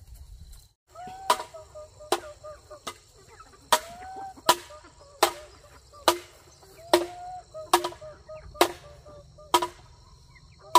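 A flock of chickens clucking as they feed, over a steady series of sharp knocks, about one every 0.8 seconds.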